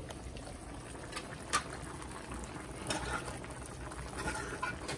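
Pot of Caribbean stew chicken simmering on the stove: a steady low bubbling, with a few light clicks of the pot and utensils.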